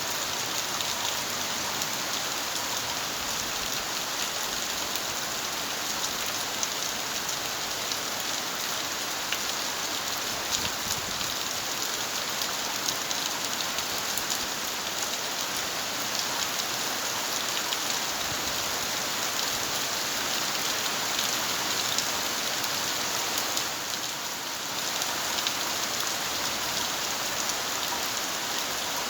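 Steady rain falling and pattering on surfaces, an even hiss with many small drop ticks; it eases briefly about three-quarters of the way through.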